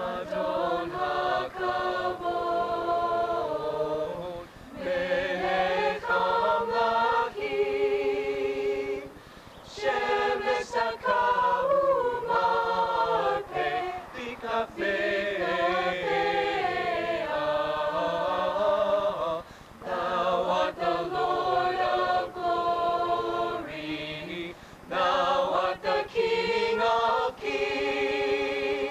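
Mixed choir of men and women singing a cappella in harmony, held chords sung in phrases of several seconds with brief pauses for breath between them.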